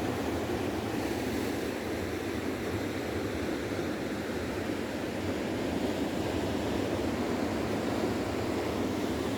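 Steady road and engine noise inside a moving car's cabin, a continuous low rumble without changes.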